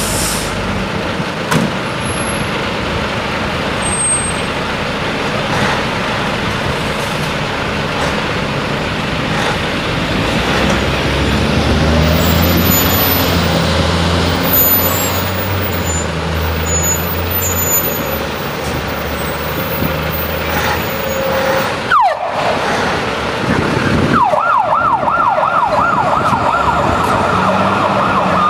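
Diesel fire trucks running and pulling away, the engine note rising for a few seconds near the middle. About 24 seconds in, a fire-engine siren starts in a fast yelp, rising and falling about four times a second.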